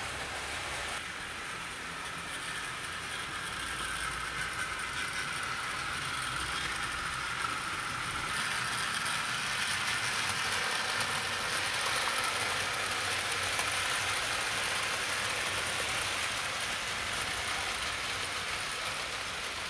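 OO gauge model trains running on track: a steady rolling hiss of metal wheels on rails with a faint motor whine drifting in pitch, getting a little louder over the first dozen seconds.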